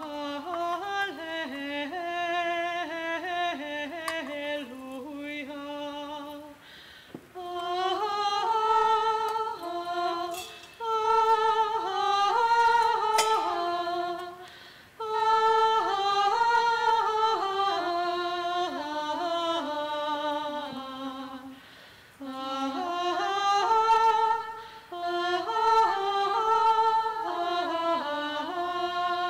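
A single voice chanting a liturgical melody unaccompanied, most likely the Gospel acclamation. It is sung in several long phrases with short breaths between them.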